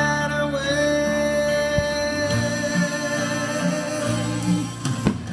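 Instrumental passage of a country-style patriotic song, with guitar over a steady bass line.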